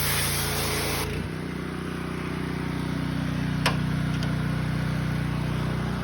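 Gas-engine pressure washer running: the spray hiss cuts off sharply about a second in, leaving the engine running steadily, with one sharp click near the middle.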